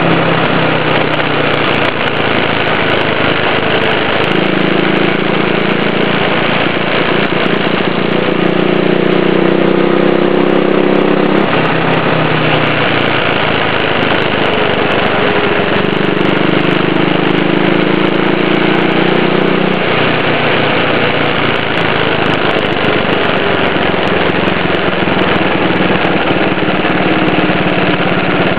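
Loud rumble of a gravity racer's wheels rolling fast down a road, with a steady hum whose pitch steps and drifts up and down as the speed changes.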